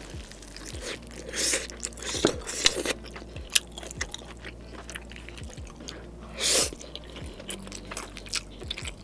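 Close-up eating sounds: chewing and biting into sauce-coated tomahawk steak and spicy instant noodles, wet and crunchy, with many small clicks and a few louder noisy bursts, the loudest about six and a half seconds in.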